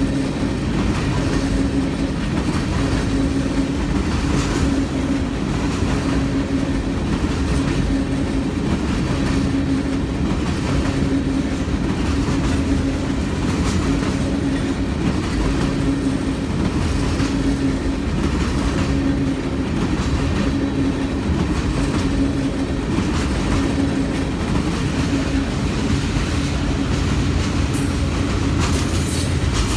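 Manifest freight train rolling steadily past, its wheels clicking over rail joints, with a low hum that comes and goes.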